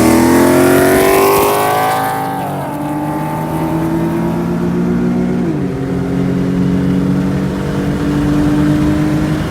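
Car engine accelerating through the gears: its pitch climbs, drops at a shift a little after two seconds in, climbs again, and drops at a second shift partway through.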